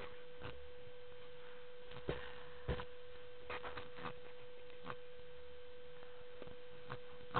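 A faint, steady tone at one pitch, with a few soft taps and rustles scattered through it.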